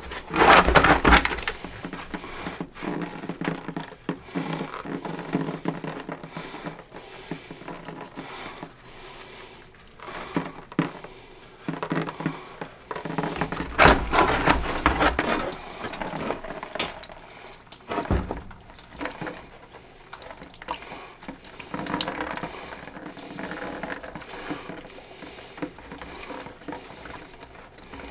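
Backed-up waste water draining out around a loosened cleanout on a clogged 1½-inch kitchen drain line and splashing into a bucket, in uneven surges that are loudest near the start and about halfway through.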